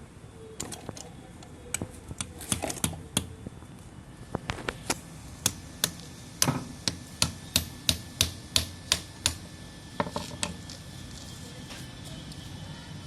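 Metal hand tool knocking on a PVC pipe fitting. Irregular taps come first, then about a dozen sharp, evenly spaced strikes at roughly three a second, and a last few taps near the end.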